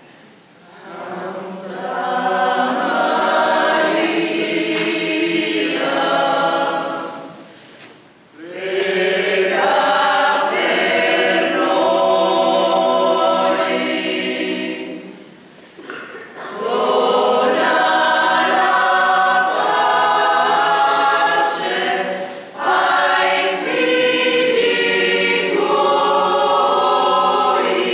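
Mixed choir of men's and women's voices singing a cappella, in long phrases broken by short pauses for breath about every seven seconds.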